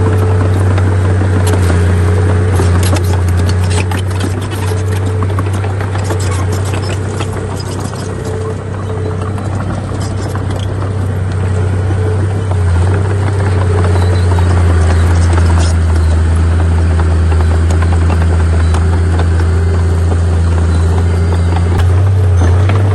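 Diesel engine of heavy earthmoving machinery running with a steady low drone, with scattered short clicks and knocks over it. The engine eases off slightly around eight seconds in and picks up again a few seconds later.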